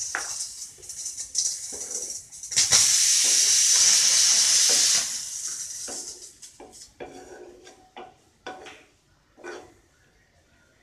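Pressure cooker giving a whistle: a loud hiss of steam from its weight valve, lasting about two and a half seconds and starting some two and a half seconds in. It is the sign that the dal inside has come up to pressure. Before and after it, a wooden spatula scrapes and taps in a steel pan.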